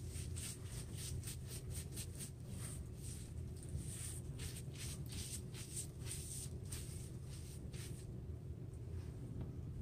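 Clear plastic gloves rubbing hair dye into short hair: a quick run of soft, crinkling rubbing strokes, several a second, that stops about eight seconds in, over a steady low room hum.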